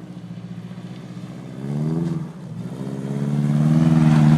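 Car engine revving hard as the car is drifted on snow. The revs climb, fall away sharply about two seconds in, then build again and hold high near the end.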